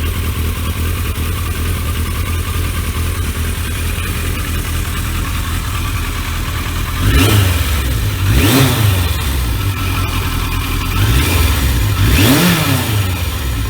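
1983 Yamaha XJ650 Seca Turbo's carbureted four-cylinder engine idling steadily. About seven seconds in it is revved in four quick throttle blips, two pairs, each rising and dropping back to idle.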